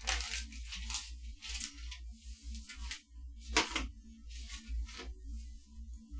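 Rustling, scraping and light clicks of computer parts and their packaging being handled, a series of short noises over a steady low hum.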